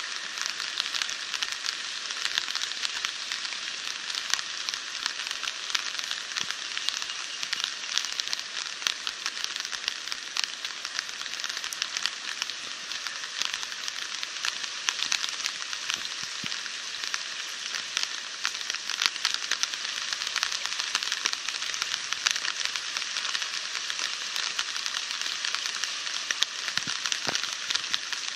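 Flooded creek in spate: fast, muddy floodwater rushing and churning past tree trunks, giving a steady, crackling hiss.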